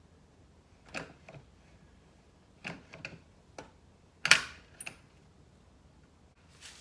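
A caulking gun being worked to lay silicone over a hole: several scattered, sharp clicks and knocks, the loudest about four seconds in.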